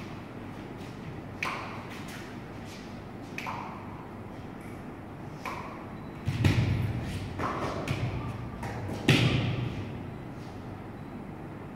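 Bare feet stamping and scuffing on a large sheet of paper laid on a hard floor: irregular thumps every second or two, each with a brushing, papery tail, the two heaviest thumps about six and nine seconds in.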